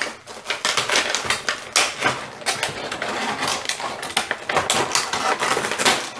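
Plastic action-figure packaging crackling and clicking, with a dense run of irregular small clicks and rustles as the figure's accessories are handled and worked loose from their plastic tray.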